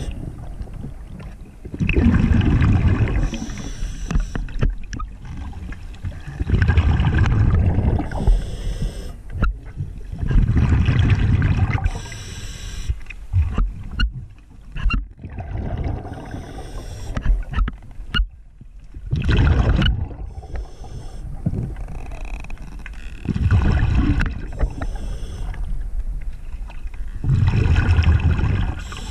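Diver breathing underwater through a regulator: a hissing inhale followed by a rush of exhaled bubbles, repeating about every four seconds.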